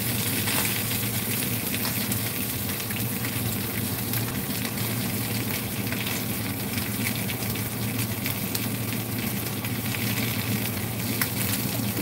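Mayao fish pieces frying in a little cooking oil in a nonstick pan: a steady sizzle with many small crackling pops, over a steady low hum.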